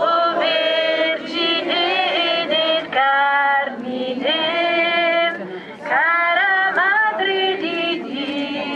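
Voices, mostly women's, singing a slow devotional hymn in unison, with long held notes that slide between pitches.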